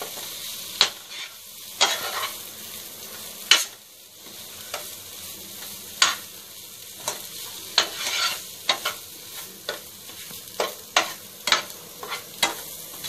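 Metal spatula scraping and knocking against a nonstick kadai at an uneven pace as a thick masala paste with onions and tomatoes is stirred, over a steady sizzle of the frying mixture.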